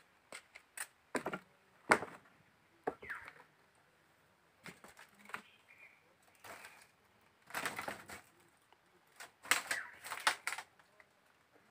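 Footsteps on wooden planks and a slatted bamboo floor: irregular knocks, cracks and creaks, with denser bursts of rattling footfalls about two-thirds of the way through.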